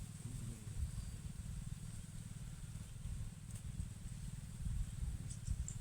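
Low rumble of wind or handling noise on the microphone, with a rapid run of short high ticks, about six a second, starting near the end.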